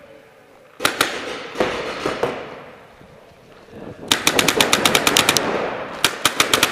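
Paintball markers firing in quick semi-automatic strings, each shot a sharp pop with an echo. A few single shots come about a second in and near two seconds. A fast string of roughly ten shots a second starts at about four seconds and lasts over a second, and another burst comes near the end.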